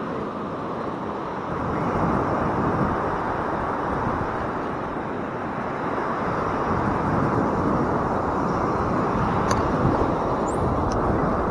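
Surf breaking on a sandy beach: a steady rush of waves washing in.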